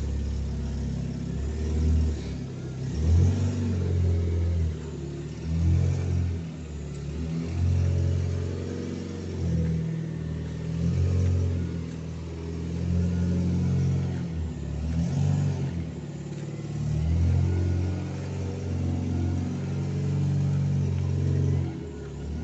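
Citroën C4 running with an aftermarket sport exhaust, a deep rumble at idle, revved up in short blips several times.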